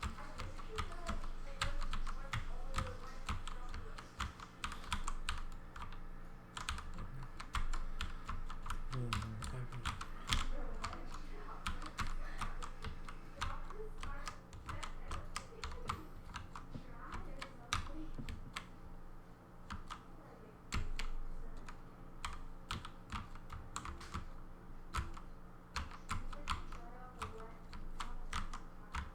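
Steno typing on a Redragon K552 mechanical keyboard with 3D-printed flat keycaps: a fast, irregular run of clicking key strokes, the keys pressed together in chords.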